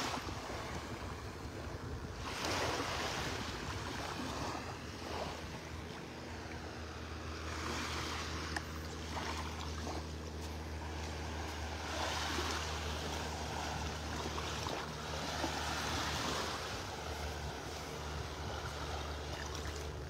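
Small waves washing onto a sandy beach, the surf swelling and fading every few seconds, with a steady low hum underneath.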